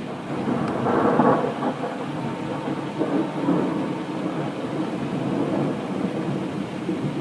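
Thunder rumbling continuously, swelling about a second in and again around three seconds in.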